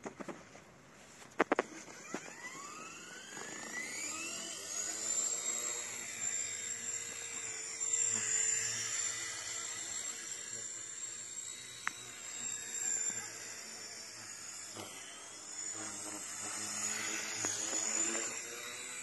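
WLtoys V911S micro RC helicopter's electric motor and rotor spooling up with a steeply rising whine, then running on at a high, wavering whine. Two sharp clicks come just before the motor starts.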